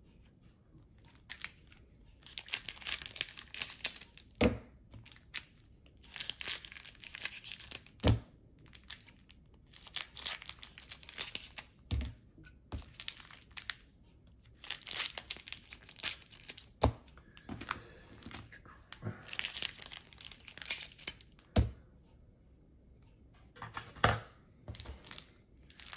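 Crinkling of plastic or cellophane wrapping as trading cards are handled, in about six bursts of a second or two, each ending in a sharp tap.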